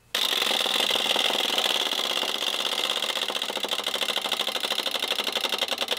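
Wind-up chattering teeth toy clattering: a fast, even run of plastic clicks that starts suddenly and slows slightly toward the end as the spring runs down.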